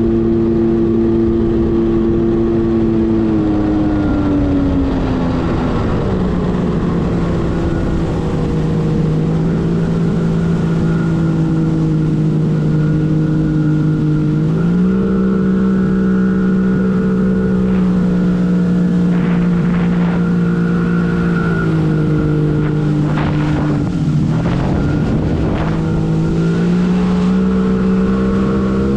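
1997 Arctic Cat TigerShark Monte Carlo 1000 two-stroke watercraft engine running under way, its pitch easing down after a few seconds, holding, then rising again as the throttle changes. There are a few short splashy hisses in the second half.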